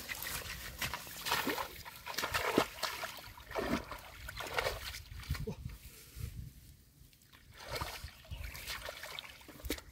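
Shallow muddy water splashing and sloshing in irregular bursts as hands rake and scoop through it among rice plants.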